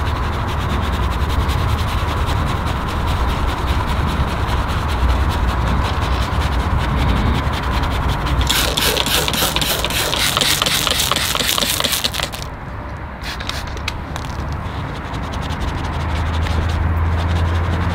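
Rubbing and scraping of hands-on car-detailing work over a steady low hum. About halfway through, a few seconds of quick repeated strokes.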